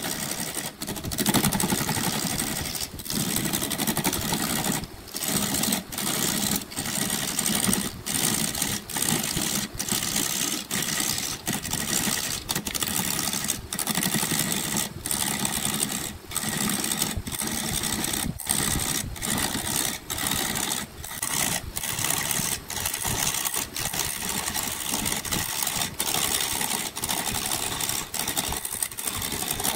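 Wood lathe spinning a laminated wooden blank at about 420 rpm while a hand-held gouge cuts into it, a steady scraping hiss of shavings. The sound is broken by many brief gaps, about one a second.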